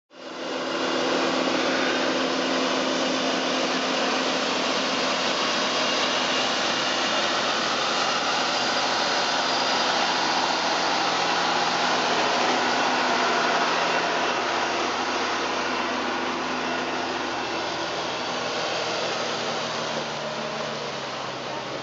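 Backhoe engine running steadily under power, a dense mechanical hum with a wide hiss. It comes in abruptly and eases off slightly over the last few seconds.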